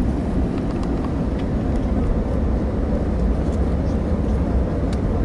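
Passenger airliner cabin on a landing approach: a steady low rumble of engine and airflow noise, with a few faint clicks.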